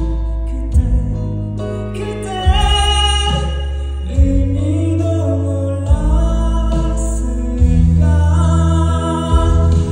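A song performed live: a male vocalist singing over instrumental accompaniment with sustained bass notes that change every second or two.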